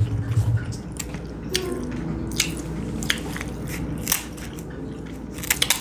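Crab leg shells being cracked and pulled apart by hand, a series of sharp cracks and snaps about once a second, with faint squishy sounds of the meat.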